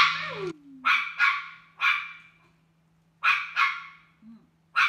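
Dog barking repeatedly: about seven sharp barks, several coming in quick pairs.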